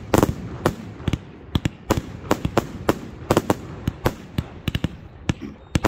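Fireworks going off in rapid, irregular succession: sharp reports and pops from shells and cakes, several a second, some in quick clusters, over a continuous crackling rumble.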